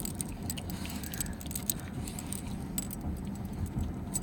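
Light metallic jingling, many small quick clinks scattered through, over a steady low rumble of a vehicle cabin.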